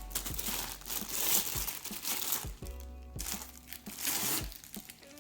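Packaging crinkling and rustling in several bursts as vacuum accessories are unwrapped, over background music.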